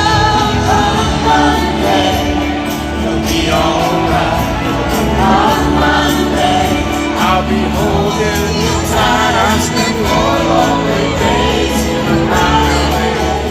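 Live band music with a sung vocal, recorded from the audience at a loud concert.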